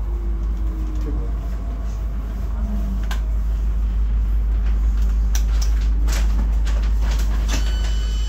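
Inside a DB Class 430 S-Bahn electric multiple unit: a steady low rumble, with a handful of sharp clicks in the second half and faint voices.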